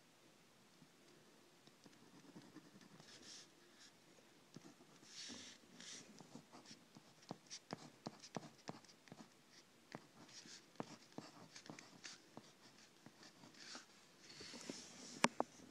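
Faint scratching of a drawing tool on paper in short separate strokes, with light taps and clicks between them and one sharper click near the end.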